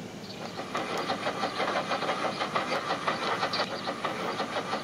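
Steam locomotive chuffing sound effect from a cartoon, played through a TV speaker: an even, steady run of quick chuffs, several a second.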